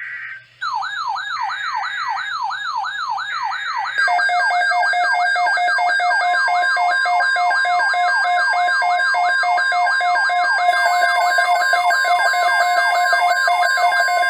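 Emergency Alert System alarm on NOAA Weather Radio. Short buzzy data bursts come in the first few seconds, and a steady alert tone near 1 kHz holds from about six seconds in. Over them a siren sweeps up in pitch about three times a second, joined about four seconds in by a pulsing electronic beeping alarm.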